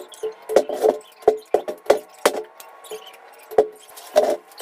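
Irregular clinks and rattles of cut copper motor-winding bundles being handled and dropped onto a metal workbench, each knock ringing briefly.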